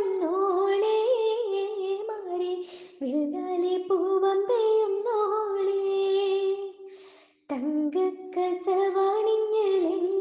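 A female voice singing the melody of a Malayalam mailanchi (henna) song in long held notes without clear words, breaking off briefly about seven seconds in and then going on.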